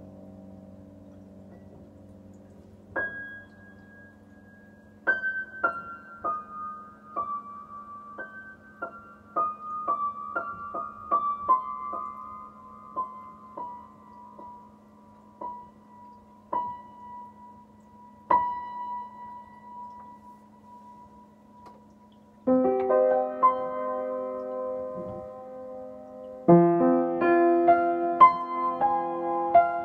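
Upright piano played solo. A slow right-hand line of single high notes steps downward over a held low note, then loud two-handed chords come in about two-thirds of the way through and again a few seconds later.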